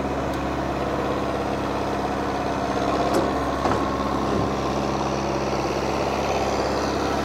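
John Deere diesel farm tractor idling steadily, with a light knock or two about halfway through.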